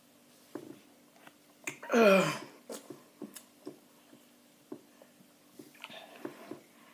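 A boy's short wordless cry of distress, falling in pitch, about two seconds in, a reaction to the intense sourness of the candy in his mouth. Faint scattered clicks sound before and after it.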